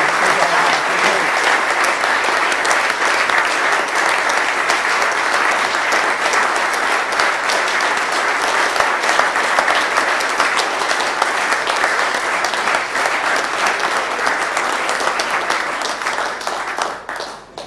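Sustained applause from a room full of people, dense and steady, dying away and stopping about a second before the end.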